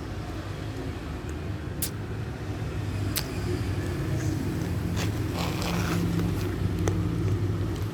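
A steady low mechanical hum with a few sharp clicks over it.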